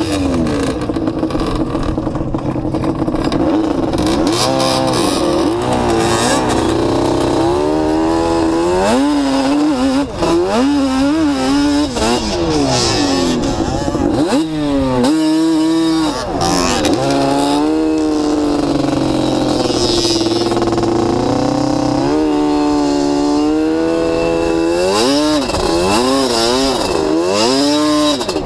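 Yamaha sport ATV's engine revving up and down over and over as it is ridden hard, its pitch climbing and dropping with each twist of the throttle.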